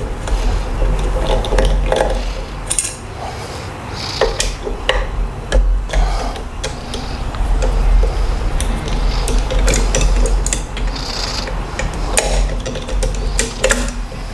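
Metal clicks, knocks and scraping as a hex key turns screws and parts of a JTS AK-pattern 12-gauge shotgun are worked loose and handled, over a steady low rumble.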